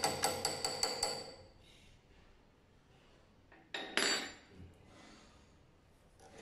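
Rapid light metal-on-metal taps with a ringing tone, about six a second, from a steel key knocked against the hub of an ultrasonic sewing machine's roller. The taps stop about a second in. Near four seconds there is one short metallic clink and clatter.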